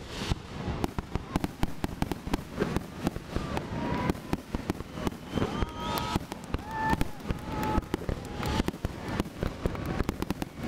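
Aerial fireworks display: a rapid, dense run of bangs and crackling from shells bursting one after another. From about four seconds in, short whistle-like tones sound between the bangs.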